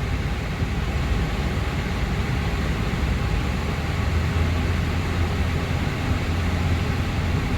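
2011 Honda CR-V idling with its air conditioning running, a steady hum under an even rush of fan noise. The freshly serviced AC system is cooling properly, with the vent air down to about 36 degrees.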